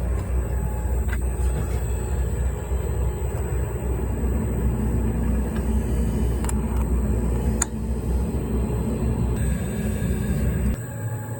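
Jeweler's rolling mill running with a steady low rumble as a metal ingot is rolled narrower, with a couple of sharp clicks midway; the rumble stops a little before the end.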